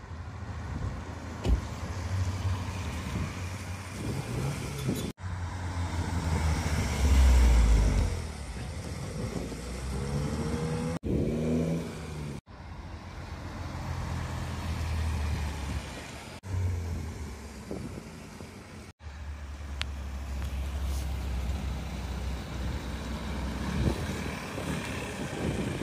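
Cars driving slowly past one after another, with engines and exhausts running low, heard in several short cuts. The loudest pass comes about seven seconds in, and a brief rev rises in pitch around eleven seconds.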